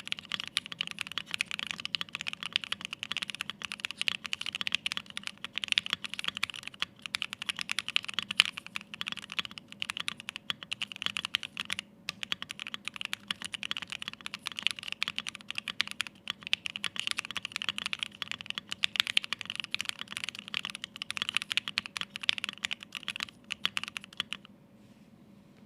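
Continuous fast typing on a Bakeneko 60 mechanical keyboard with lubed and filmed Pinoko linear switches, an FR4 plate, PBT keycaps and no foam: a dense patter of key clicks. The typing stops about a second before the end.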